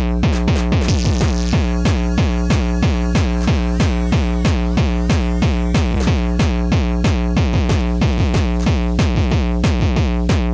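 Fast, hard tekno played live on drum machine and synthesizer: a dense, rapid pulse of percussion hits over a steady, heavy bass line.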